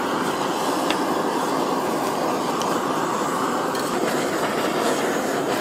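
Handheld kitchen blowtorch flame running in a steady rush as it browns the melted cheese on grilled lobster, with a couple of faint ticks.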